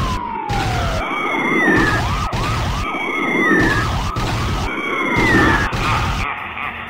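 Cartoon police siren sound effect. A fast warbling yelp starts about a second in and runs for a few seconds. A falling wail repeats every couple of seconds over a rushing, rumbling noise.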